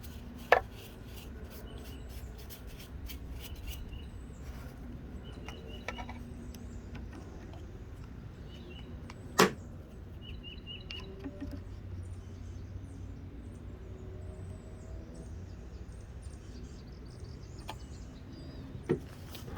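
Sharp clicks from handling the key in the key-cutting machine's clamp: one about half a second in, a louder one about nine seconds in and another near the end, over a steady low hum. Birds chirp faintly throughout.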